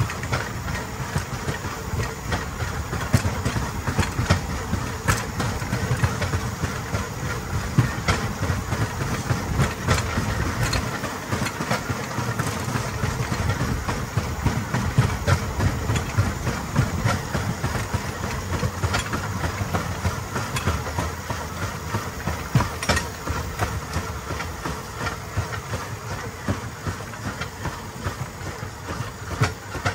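Rail bike's steel wheels rolling fast along old railroad track: a steady rumble and rattle, with sharp clacks as the wheels cross rail joints. It eases off near the end.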